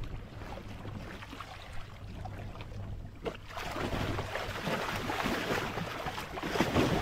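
Water splashing and churning as a large Mekong giant catfish is let go by a wading angler and thrashes its tail at the surface; the splashing starts about halfway through and grows louder toward the end.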